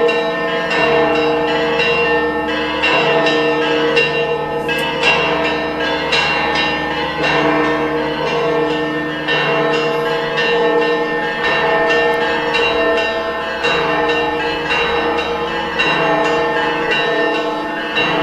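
Church bells pealing, several bells struck in quick succession with their tones ringing on over one another.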